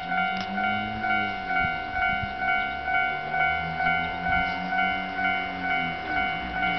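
Japanese railway level-crossing bell ringing at an even beat of about two strikes a second, the warning that a train is approaching. A low drone with slowly shifting pitch sits underneath.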